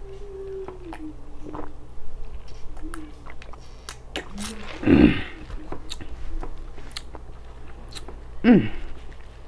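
Close-up mouth sounds of a person drinking from a foam cup and eating: wet clicks, sips and swallows throughout, a short hummed 'mm' in the first second, a loud breathy voiced exhale about five seconds in, and a falling 'mm' near the end.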